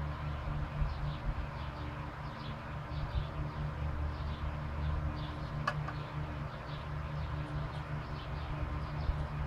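Light, repeated clicking of a ratcheting wrench turning the bolt of a homemade valve spring compressor, with one sharper click a little past halfway, over the steady hum of a shop fan running.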